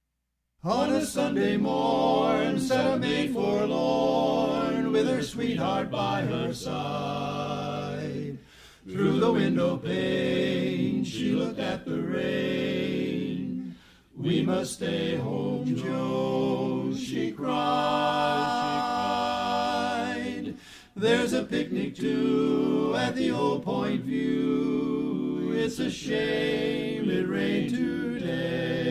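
Barbershop quartet singing a cappella in close four-part harmony, starting about half a second in after a brief silence, with short breaks between phrases.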